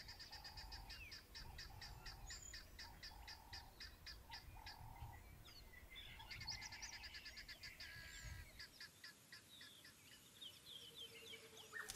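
Faint bird calls: rapid runs of high chirps with short whistled slides, over a lower note repeated about twice a second. The calling pauses briefly about halfway through, then resumes.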